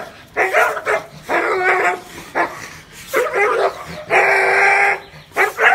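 A dog barking in a series of short, separate calls, with one longer drawn-out call about four seconds in.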